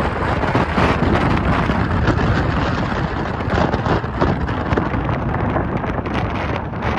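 Strong wind blowing in gusts and buffeting the microphone, a loud, continuous rush of noise with heavy low rumble.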